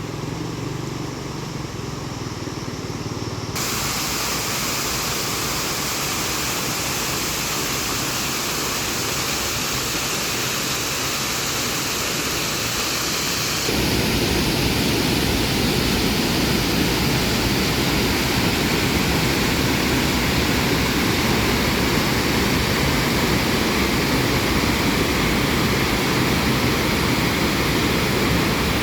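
Loud, steady rush of water with no distinct tones. It shifts abruptly about three seconds in and again about halfway through, becoming louder and deeper after the second shift.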